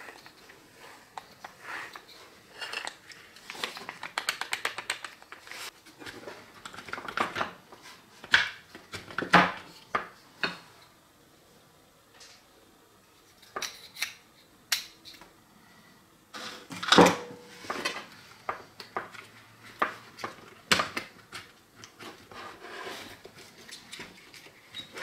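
Parts of an old corded electric drill being handled during disassembly: irregular clicks, knocks and light clatter of the plastic housing and the metal gear and chuck assembly. A quick run of ticks comes about four seconds in, and the loudest knocks come around nine and seventeen seconds in.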